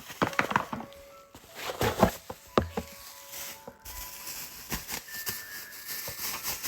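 Packaging being handled during unpacking: a run of clicks, knocks and rustles, loudest in the first three seconds, then lighter taps.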